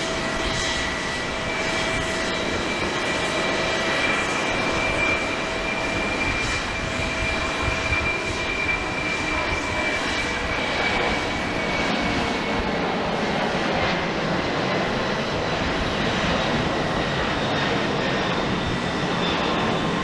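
Boeing 767-300ER jet engines running, a steady roar with high whining tones. Some of the tones slowly drop in pitch and fade about halfway through.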